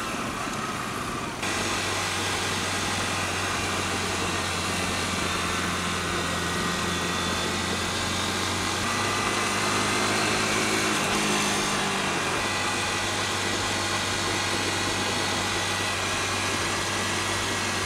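Motorcycle engine running steadily under wind and road noise while riding on the road; the rush of wind noise rises about a second and a half in, and the engine tones shift in pitch around the middle.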